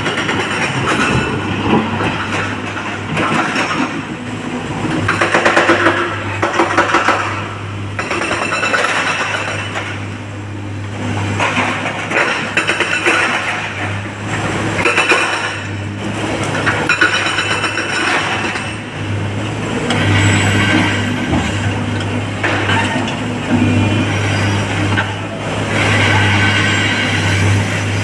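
SANY SY225 hydraulic excavator's diesel engine running with a steady low hum, its note swelling again and again as the hydraulics work the boom and bucket. Rock and earth clatter as the bucket digs and dumps its loads into a steel tipper truck bed.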